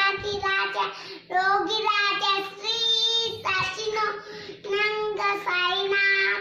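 A young child singing a Sai Baba devotional song (bhajan) solo, in phrases of long held notes with short pauses between them.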